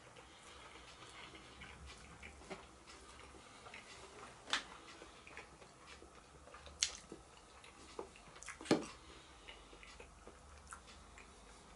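Eating sounds: a metal fork clicking and scraping against a cardboard takeaway box and a paper cup, with chewing between. The clicks are scattered and faint, with a few sharper ones in the middle stretch.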